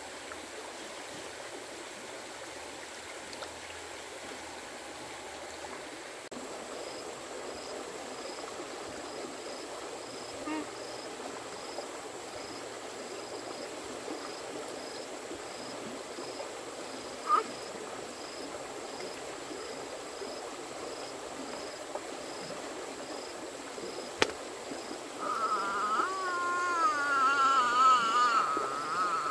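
Running water, steady throughout, with faint regular chirps about twice a second. Near the end a louder wavering, warbling tone rises for about four seconds.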